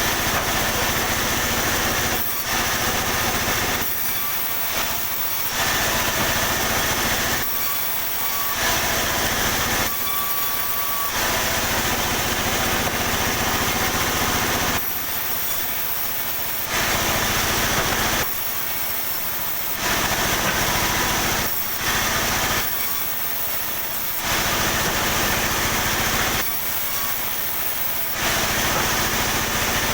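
Sawmill saw cutting pine timber into small pieces. The machine runs with a steady low hum, while the high cutting noise changes every one to two seconds as cuts start and end.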